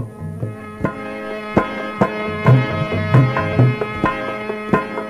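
Instrumental passage of a devotional bhajan: tabla strokes over steady held chords.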